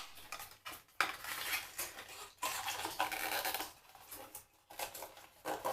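A cosmetic product's packaging being opened and the container handled: irregular scraping and rustling with a few light clicks and knocks.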